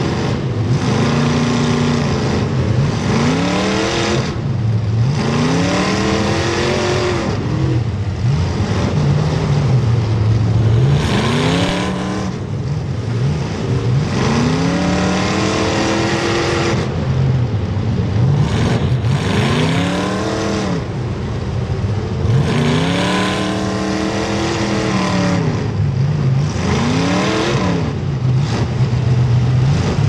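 Demolition derby car engines revving up and dropping back over and over, several engines sounding at once.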